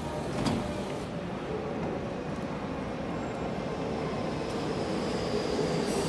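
Doors shutting with a single sharp thump about half a second in. Then a steady rumble as the Tokyu 5050-series electric train begins to move off, with a faint high whine coming in during the second half.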